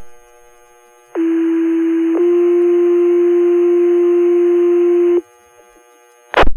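Two-tone sequential fire-department paging tones over a scanner radio: one steady tone about a second long, then a slightly higher tone held about three seconds, with radio hiss behind them. These are the alert tones that set off the volunteer firefighters' pagers for the station. A short loud burst of radio squelch comes near the end.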